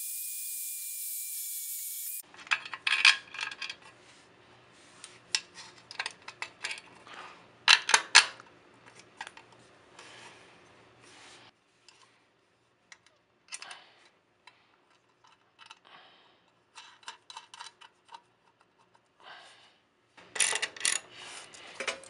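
Cordless drill boring a hole through the generator's airbox housing, a steady high whine that stops abruptly about two seconds in. Then scattered metal clinks and rattles as a screw and sleeve are handled and fitted, and near the end a quick run of clicks from a socket ratchet tightening the screw.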